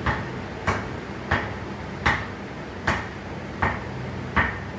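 A heavy Nivia ball bounced repeatedly up off the face of a new Deal Hub Sports 'Hulk' cricket bat, seven short sharp knocks about three-quarters of a second apart, to test the bat's stroke.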